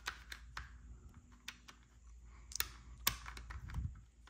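Hard plastic clicking and tapping as the battery compartment cover on the underside of a toy RC car is handled and pressed into place, a scattering of sharp clicks with the two loudest about two and a half and three seconds in.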